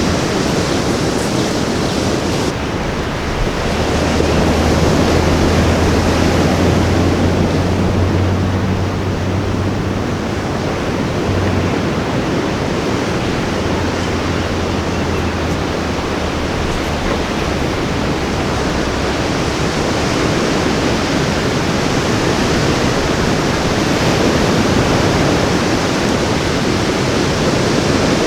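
Ocean surf washing steadily onto a tropical beach, a continuous roar of breaking waves. A low hum runs underneath from about three seconds in until about halfway through.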